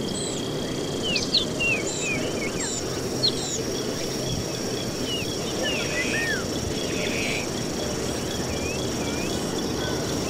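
Outdoor ambience: several birds chirping with short rising and falling calls, thinning out after about seven seconds, over an even steady background noise and a thin, steady high-pitched tone.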